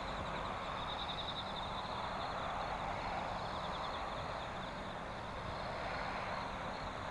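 Night ambience: insects chirping in a steady, rapid, high-pitched pulsing trill over a faint even wash of distant noise.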